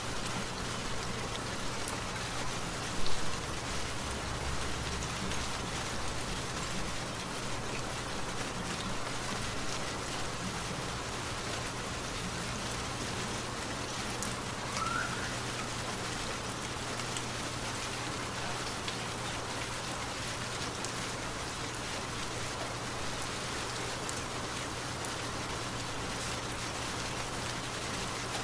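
Steady rain falling and pattering on surfaces, an even hiss of drops with a faint low hum beneath. About three seconds in, a single brief louder thump rises above the rain.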